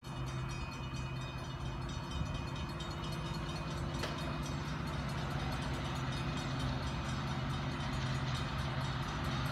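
Diesel locomotives of an approaching Norfolk Southern freight train, three units, giving a steady low engine drone that grows slowly louder.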